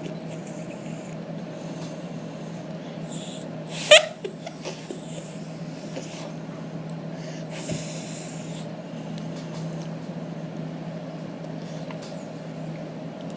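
Blowing into a homemade drinking-straw reed noisemaker: mostly breathy hissing through the straw, with one short, loud squawk rising in pitch about four seconds in, over a steady low hum.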